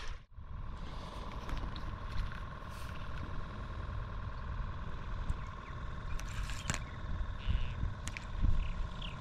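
Steady outdoor background rumble with a faint constant hum, and a few small clicks about two-thirds of the way through.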